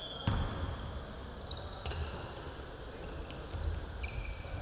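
Basketball game on an indoor hardwood court: a couple of ball bounces on the floor and short high squeaks of sneakers as players cut and stop, over the hum of a large gym.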